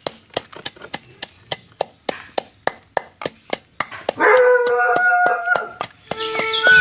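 Wooden pestle pounding green chillies in a wooden mortar, about three dull strikes a second. Past the middle, a held pitched tone with overtones sounds over the pounding for about a second and a half.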